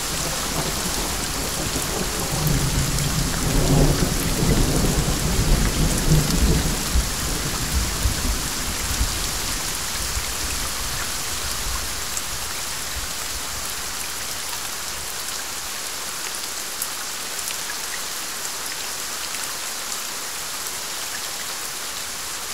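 Steady rain hissing down, with a long roll of thunder rumbling through the first half and dying away about twelve seconds in.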